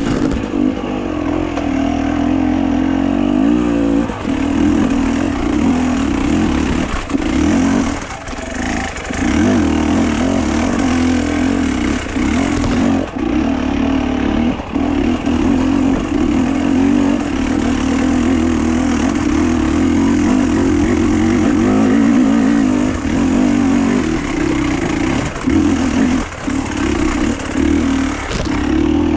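Motor vehicle engine running at a steady pitch under way, with a low rumble beneath it.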